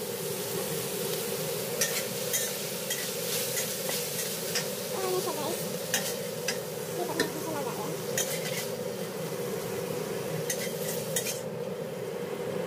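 Pork pieces sizzling in hot oil in a wok while a spatula stirs and scrapes them, with irregular sharp clicks of the spatula against the pan.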